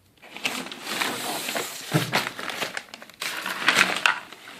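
Packaging crinkling and rustling as parts are handled and pulled out of a box, with irregular small crackles and a couple of louder handling bursts.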